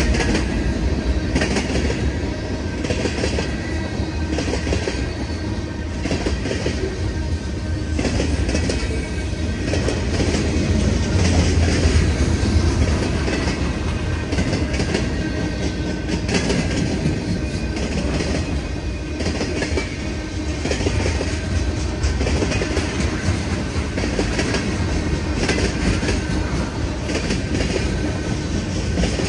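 Freight train cars rolling past, a steady heavy rumble with steel wheels clicking over the rail joints and a faint high wheel squeal.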